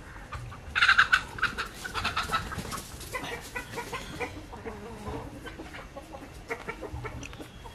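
Chickens clucking, loudest in a bout about a second in, then in scattered shorter calls.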